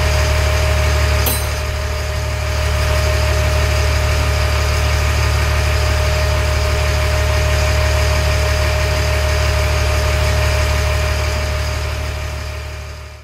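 LMTV truck's diesel engine idling steadily, with a steady high whine over it, while its hydraulic-driven A/C system is charged with refrigerant. The sound fades out near the end.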